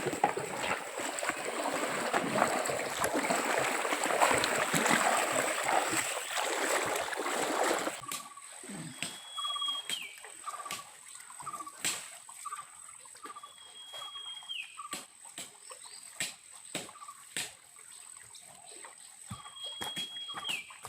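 Water splashing and sloshing for about eight seconds, then a sudden change to quieter jungle sound. A steady high insect-like drone, a short call repeating about twice a second, and three times a held high whistle that drops at its end, with scattered sharp clicks and snaps.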